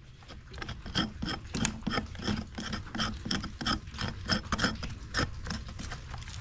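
A farrier's hand tool scraping the sole of a horse's hoof as it is trimmed: quick repeated strokes, about two or three a second, each with a faint metallic ring.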